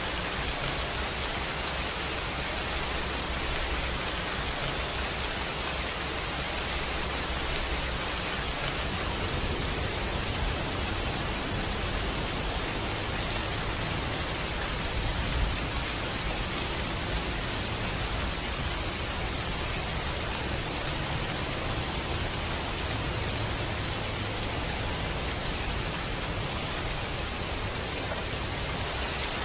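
Steady recorded rain: an even, unbroken hiss of rainfall with a low rumble beneath it, and one brief louder spot about halfway through.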